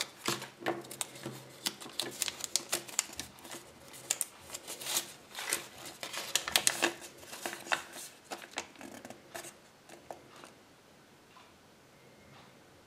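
Handling of a Kinder Surprise toy capsule and its contents: rapid, irregular crinkling and clicking of small plastic and paper packaging as it is pulled open and unfolded. The sound thins out and dies away about ten seconds in.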